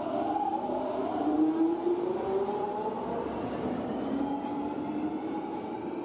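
Underground train pulling away: a steady rumble with an electric motor whine that rises slowly in pitch, twice, and a couple of faint clicks after about four seconds.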